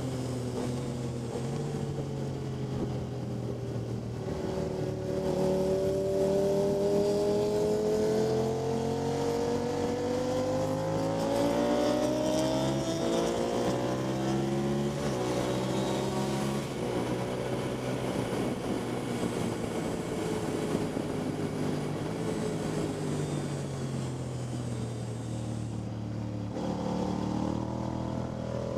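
Motorcycle engine at speed, heard on board: its pitch climbs for several seconds, drops abruptly about thirteen seconds in, then falls gradually as the bike slows, and rises again near the end.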